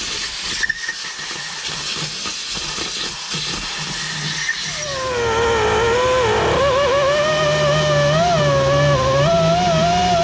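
A hiss with some clatter. About five seconds in, an air-powered wire wheel starts running: a loud whine that wavers up and down in pitch as the wheel is pressed against the corroded aluminium heat exchanger housing to scour off the powdery oxide.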